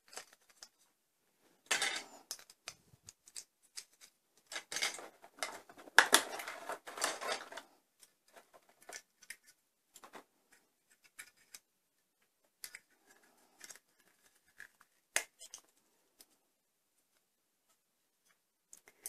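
Small plastic doll and clip-on dress being handled: bursts of rustling and clicking as the MagiClip dress is taken off and the next one opened, with a sharp click about fifteen seconds in.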